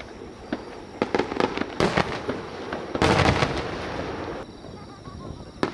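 Aerial display fireworks bursting overhead: a quick run of bangs around one to two seconds in, a thick cluster of pops about three seconds in, and a sharp single bang near the end.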